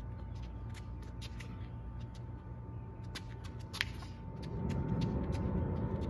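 Shadow-boxing footwork: quick light scuffs and taps of sneakers on asphalt, with one sharper click near the middle. Under them runs a steady low rumble that swells about four seconds in.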